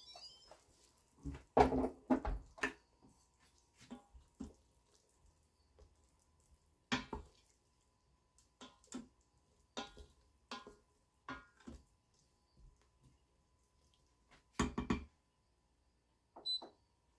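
Instant Pot lid twisted and lifted off the stainless steel cooker with a cluster of clunks, followed by a wooden spoon stirring meatballs in broth, with scattered knocks against the inner pot and splashing liquid.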